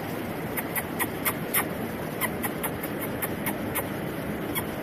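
Shallow stream running over rocks, a steady rushing noise, with irregular sharp high ticks several times a second over it.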